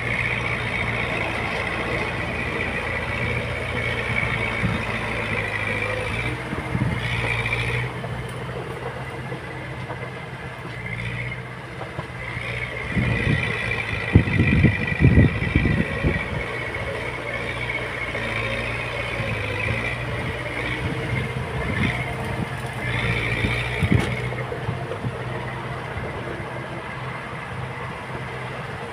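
Heavy diesel earthmoving machine at work, its engine running steadily under a high whine, with a run of heavy clanks and thuds about halfway through.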